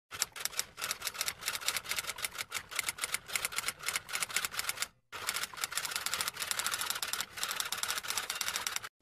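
Typewriter typing sound effect: a rapid run of key strikes that stops briefly about five seconds in, then starts again.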